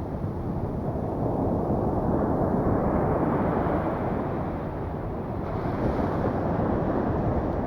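Ocean surf washing onto a beach, mixed with wind rumbling on the microphone, swelling and easing a couple of times.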